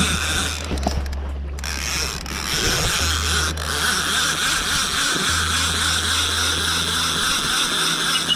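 Fishing reel being wound in after a cast, a steady mechanical whirr of the gears with a short pause about a second in.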